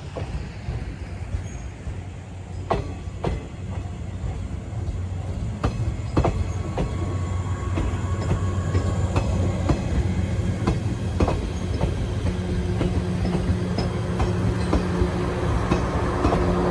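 Electric train running on the line, its wheels clicking irregularly over rail joints above a low rumble. The sound grows louder, and a steady hum joins about twelve seconds in.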